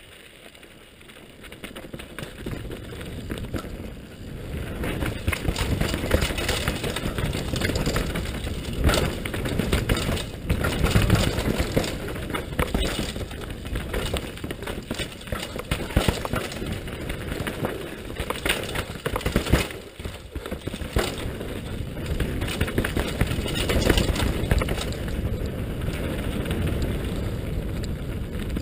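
Helmet-camera audio of a downhill mountain bike ridden fast on a dirt trail: wind rushing over the microphone, with a dense rattle of knocks and thuds as the bike hits bumps. Quieter at first, it grows louder about four seconds in as speed builds.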